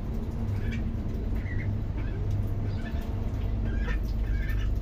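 Young white ducks giving short, scattered peeping calls as they feed at a basin of soupy food, over a steady low rumble.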